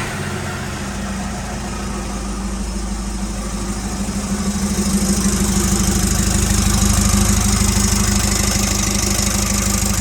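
Nissan Navara D40 pickup engine idling steadily with an even low throb, growing a little louder through the middle, shortly after being started.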